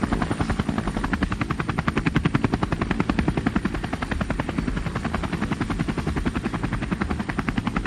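Army helicopter flying at a steady speed, its rotor blades beating in a rapid, even chop, with a faint steady high whine above it.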